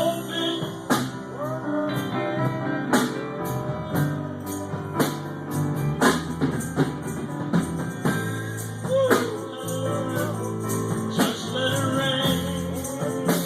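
Live gospel music: a band with guitar, bass and drums playing a slow, steady beat, with some wordless singing over it.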